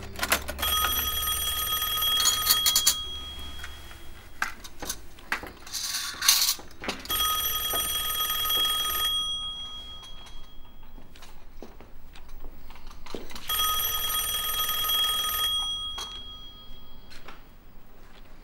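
Telephone ringing three times, each ring lasting about two seconds with a pause of about four seconds between rings. Small knocks and clinks are heard between the rings.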